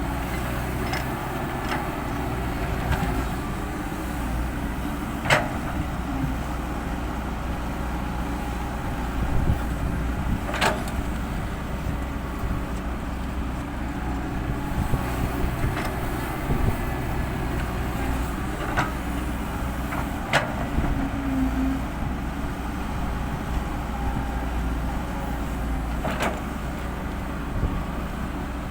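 Heavy diesel earthmoving machinery running steadily under work. A handful of sharp knocks sound over the engine every few seconds.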